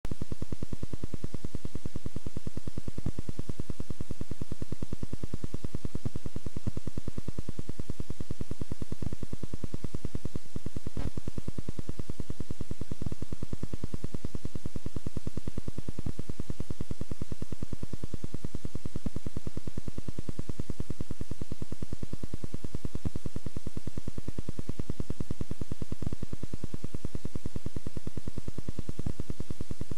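Film projector running: a steady, rapid mechanical clatter with constant hiss and an occasional louder click.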